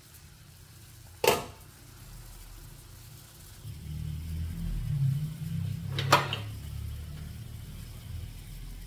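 Water boiling in a large aluminium pot on a gas burner: a low rumble that grows louder from about three and a half seconds in. Two sharp knocks, one about a second in and one about six seconds in.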